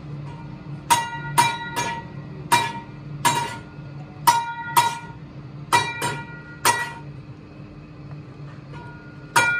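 Motor-driven three-roller bending machine running with a steady hum as it curls a flat steel strip into a wheel-rim ring. About ten sharp, ringing metal clangs come at uneven intervals over the first seven seconds, then only the hum.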